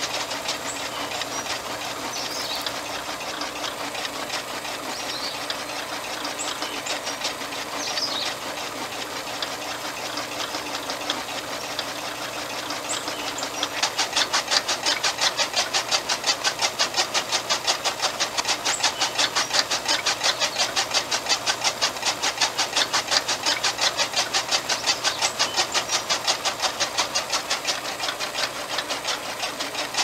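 Small motor spinning a miniature chaff cutter's flywheel and blade through a string belt while it chops grass leaves. The running sound turns into a louder, rapid, even beat about halfway through.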